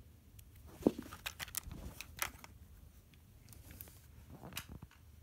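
Plastic clicks and knocks of hands working a homemade Lego gun, with a louder knock about a second in and a run of quick clicks just after.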